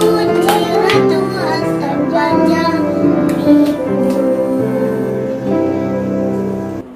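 A children's song: child and female voices singing held notes over instrumental backing. The music stops abruptly near the end.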